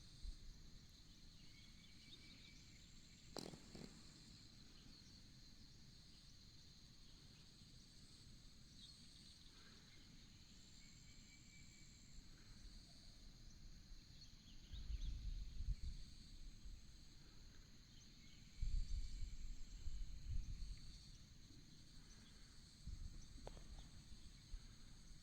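Faint rural ambience: a steady high-pitched insect chorus with a few short bird notes over it. A single sharp click comes a few seconds in, and low rumbling bursts come and go in the second half.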